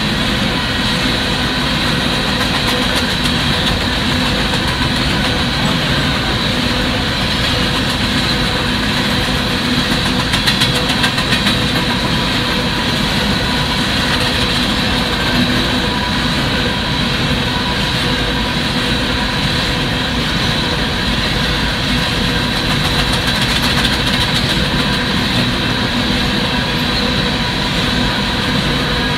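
Empty coal train's hopper cars rolling past at a grade crossing: a steady rumble of steel wheels on rail, with a short run of quick clacking about ten seconds in.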